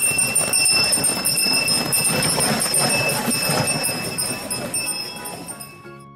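A horse galloping: rapid, dense hoofbeats with a high jingle of bells ringing over them, fading out over the last couple of seconds.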